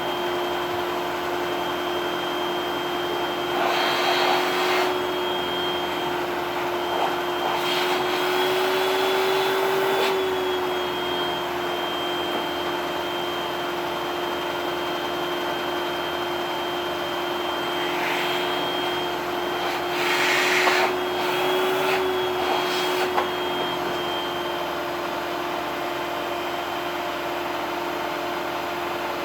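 Vacuum cleaner motor running steadily with a whine. A few short bursts of rushing air come through as the nozzle draws on something, and the pitch rises briefly twice.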